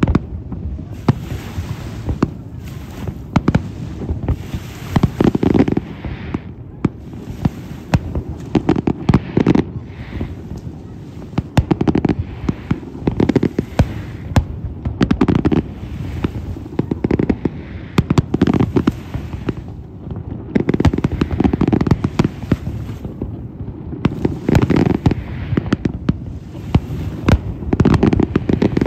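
Large fireworks display: aerial shells bursting in rapid, continuous succession, a dense run of sharp bangs and deep booms with crackling among them.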